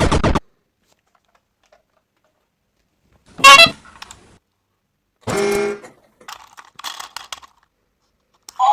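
A few short horn toots separated by silence, the loudest about three and a half seconds in, followed by a scatter of light clicks.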